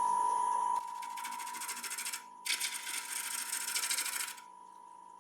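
Bowl gouge cutting the underside of a damson bowl on a running wood lathe. Two cuts, of about a second and two seconds, each a fast rattling hiss, over the lathe's steady high whine.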